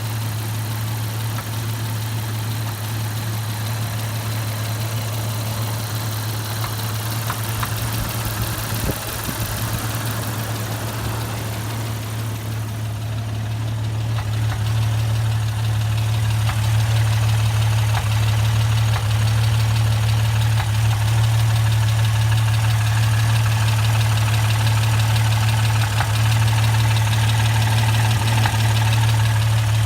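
Jeep Cherokee XJ's 4.0-litre straight-six engine idling steadily with a knocking noise that has just started, at 269,000 miles. It gets somewhat louder about halfway through.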